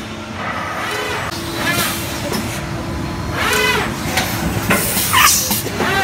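High-speed injection moulding machine with its in-mould labelling robot running: a steady mechanical hum with a rising-and-falling whine about every two seconds as the robot cycles.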